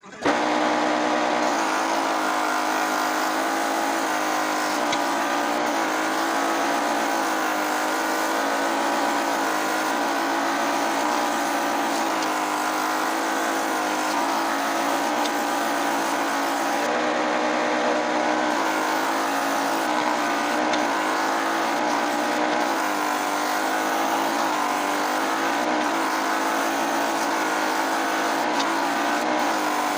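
Wood lathe driving a homemade thicknesser, running with a steady whine that wavers slightly in pitch.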